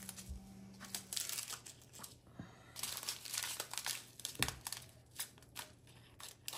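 Small plastic bags of diamond-painting drills crinkling as they are handled, with scattered light clicks and one sharper click a little past the middle.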